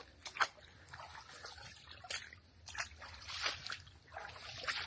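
Footsteps wading through ankle-deep swamp water, each stride an irregular slosh and splash.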